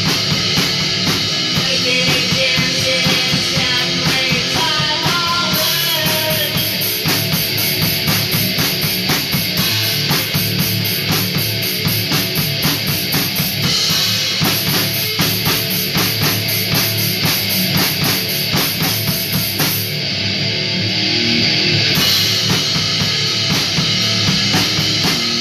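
Rock drum kit played in a full, steady beat: bass drum and snare with a constant wash of cymbals. A wavering melody line sits over it in the first few seconds, and the cymbals drop out for about two seconds near the end before coming back in.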